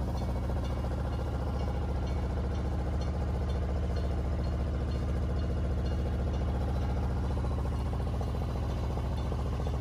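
A sailboat's inboard engine running steadily under way, making a low, even drone with a rapid regular pulse.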